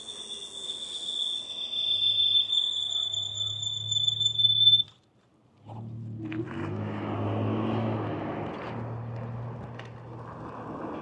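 72V dual-motor MaxFun 10 Pro electric scooter on the move: a steady high motor whine with a low hum beneath, which cuts out for under a second about five seconds in. Then wind and tyre noise with a low motor hum as the scooter speeds up.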